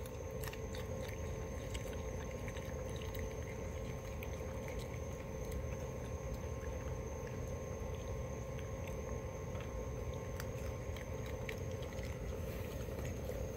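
Raccoon chewing grapes, heard as faint scattered clicks and smacks over a steady low hum and a thin, high, steady tone.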